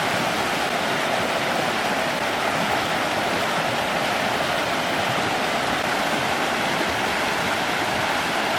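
Steady, loud rush of flowing water, loud enough to compete with a voice.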